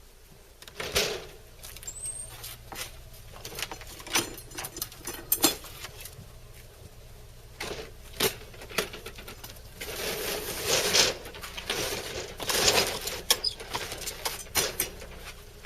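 Irregular clicks, knocks and rustling of objects being handled, loudest in clusters about a second in and again about ten to thirteen seconds in, over a faint low steady hum.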